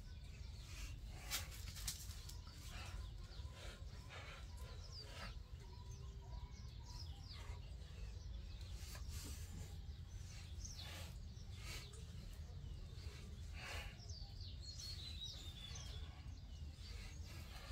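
Birds chirping over a steady low rumble, with two sharp clicks about a second and a half and two seconds in.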